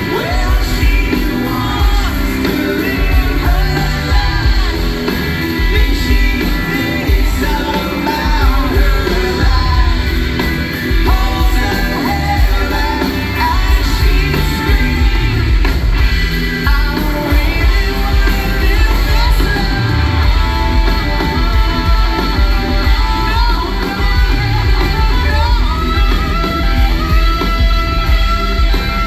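Live rock band playing with a lead singer, electric guitars, bass and drums, loud and continuous throughout.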